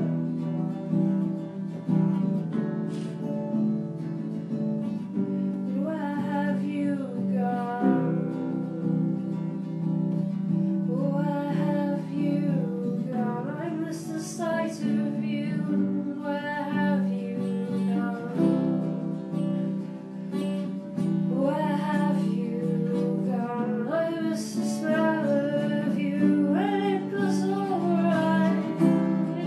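A band's demo song: acoustic guitar accompaniment with sung phrases that come in every few seconds.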